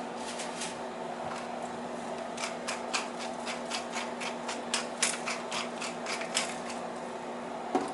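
Seasoning being shaken or ground by hand from a spice container over a baking dish of shrimp: a run of irregular sharp clicks, a few a second, heaviest from about two seconds in, over a steady low hum.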